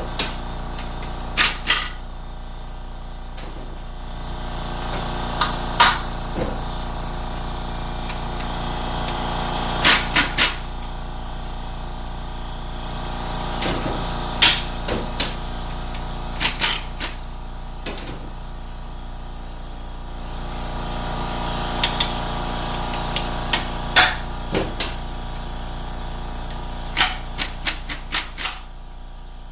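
Hammer tapping a T40 Torx socket onto the transmission's valve body cover bolts to seat it: sharp metallic taps in short clusters of one to five, over a steady hum.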